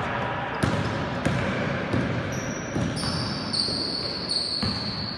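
Basketball bouncing on an indoor court: several sharp, irregular bounces, with high, steady squeaking tones from about halfway through.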